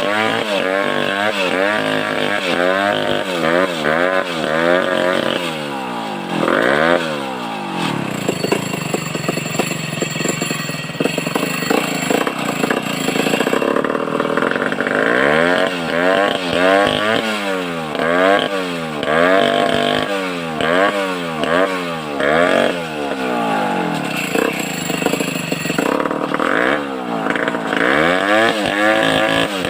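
Large two-stroke chainsaw, a home-built Stihl 070 clone, running hard while cutting timber lengthwise: the engine's pitch dips and climbs back again and again as the chain bites and frees, with a steadier, noisier stretch in the middle.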